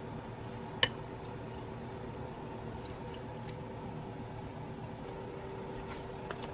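Steady background hum with a few faint steady tones, and one sharp click a little under a second in.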